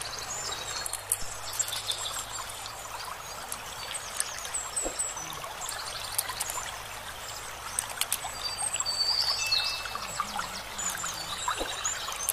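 Stream water running steadily, with small birds chirping and a louder call about nine seconds in. Scattered sharp clicks and snaps come from crab shells and legs being broken apart by hand.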